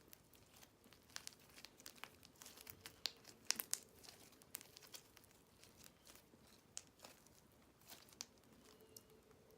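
Hands working slime mixed with crushed Banana Kick corn-puff snack, giving faint scattered crackles and snaps. The sharpest snaps come about three to four seconds in.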